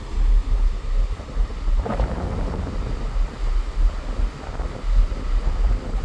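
Wind buffeting the microphone with a heavy, gusting rumble over the wash of sea surf. A wave surges briefly about two seconds in.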